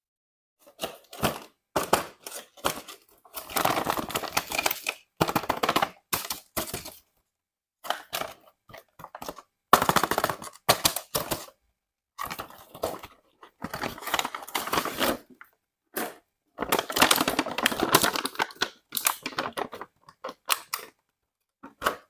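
Plastic toy and its packaging being handled: irregular bursts of clicking, rattling and crinkling, each up to about a second and a half long, with dead silent gaps between them.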